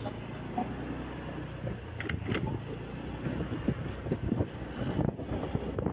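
Motor scooter engine running at low riding speed, a steady low hum, with two light clicks about two seconds in.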